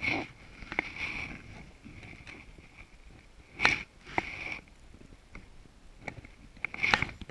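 Fly line being handled and drawn in by hand in a small boat: rubbing and swishing of the line with scattered small clicks, and two sharper knocks, about three and a half seconds in and near the end.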